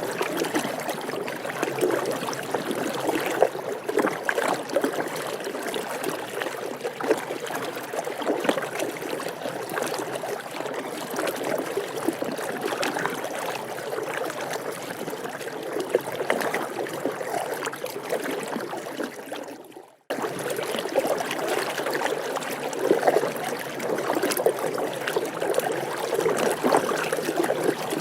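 Water splashing and sloshing from a person swimming, a steady wash of water with many small irregular splashes. About twenty seconds in it fades out, breaks off and picks up again.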